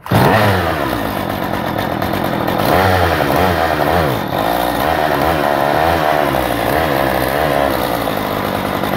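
Stihl MS 192T top-handle chainsaw's two-stroke engine running with an unsteady, surging speed, its pitch wandering up and down. This erratic running comes from a vacuum leak: a split intake connector boot lets the manifold suck air.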